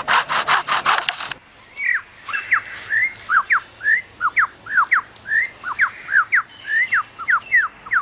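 Superb lyrebird mimicking: a run of fast rasping strokes, its imitation of foresters' chainsaws, breaks off about a second and a half in. A quick series of clear whistled notes sweeping up and down follows, about three a second.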